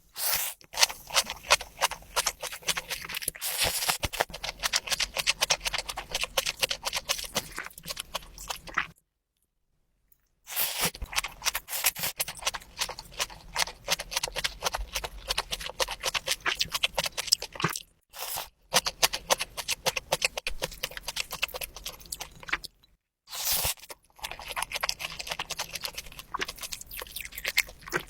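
Close-miked eating: crunchy bites and wet chewing of food, a dense run of rapid crackles and clicks. It drops out to silence for a second or two about nine seconds in, and briefly twice later.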